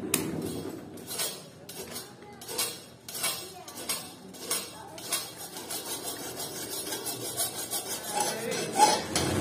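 Hand file rasping across a rusty steel saw-blade knife held in a vise. The strokes come about every half second at first, then turn quicker and lighter over the last few seconds.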